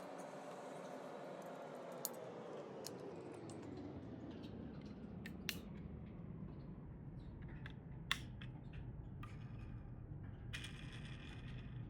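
Plastic Lego bricks being handled and snapped together: a string of sharp, irregular clicks over a low rumble, with a set of tones sliding down in pitch and fading over the first few seconds.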